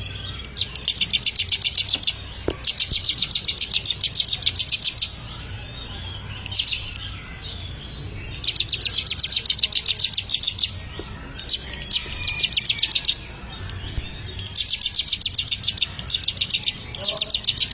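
Ciblek (prinia) song: fast runs of evenly spaced, high-pitched chirps, about ten notes a second, each run lasting one to two seconds and repeated seven or eight times with short pauses between.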